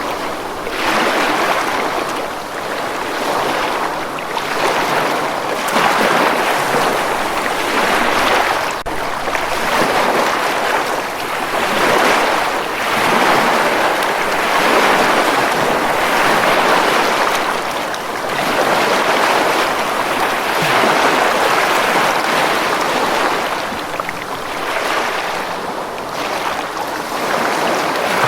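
Ocean waves breaking and washing on a beach, a continuous surf hiss that swells and eases every few seconds.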